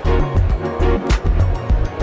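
Music with a steady beat: a bass line under a sharp drum hit about once a second.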